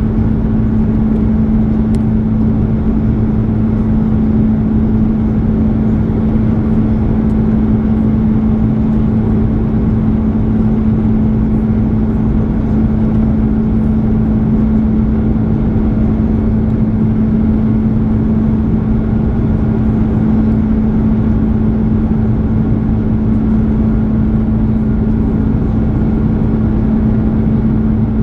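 Steady cabin noise inside an Airbus A330: a constant low rumble of the jet engines and airflow, with one steady hum standing out above it.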